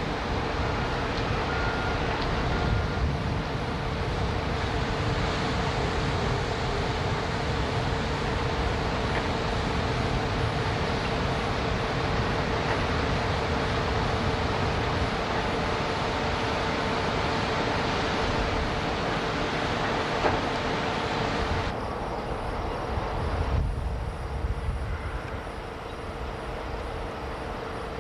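Steady noise of heavy blast furnace plant machinery, with a constant hum under it. The sound shifts abruptly twice near the end, as at cuts in the recording.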